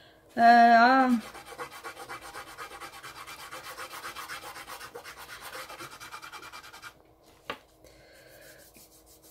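Soft pastel being rubbed quickly back and forth on textured paper as the colours are blended with a fingertip, several strokes a second. The rubbing stops about seven seconds in, followed by a single click.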